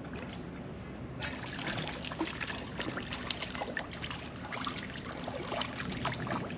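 Harbour water lapping and trickling among the rocks of the shore, a dense crackle of small splashes and gurgles that starts about a second in.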